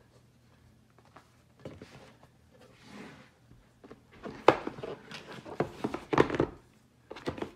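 White cardboard Apple box being opened: the lid slides off its base with a soft rustle about three seconds in, then a run of sharp knocks and scrapes as the cardboard is handled and set on the table and the iPad is lifted out of its tray.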